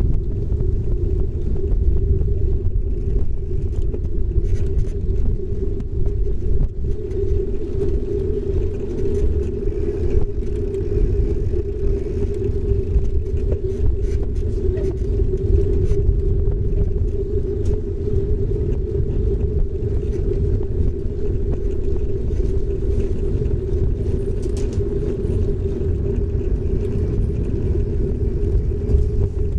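Steady rumble of a bicycle ride: the front tyre rolling over a paving-stone path, with wind blowing on the microphone.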